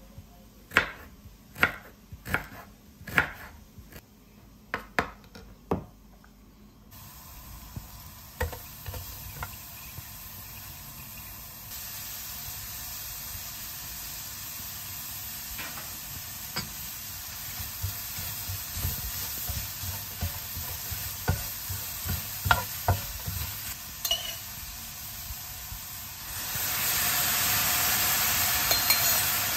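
A knife chopping ginger on a wooden cutting board, about eight sharp strikes. Then onions and leeks fry in a non-stick wok with a steady sizzle and occasional scrapes of stirring. Near the end the sizzle jumps louder as teriyaki sauce hits the hot pan.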